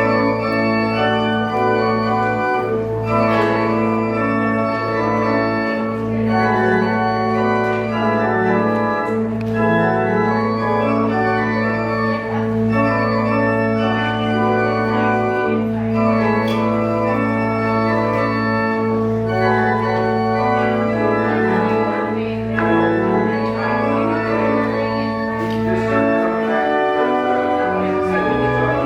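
Organ postlude: long held bass notes sounding under moving chords and melody, with the bass line shifting near the end.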